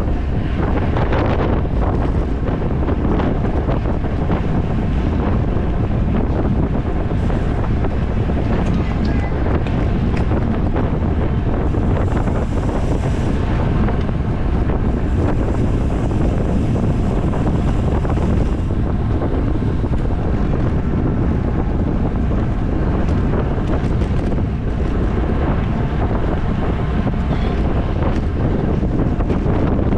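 Wind buffeting the microphone of a camera riding along in a bicycle race at speed: a steady, dense low rumble with no breaks.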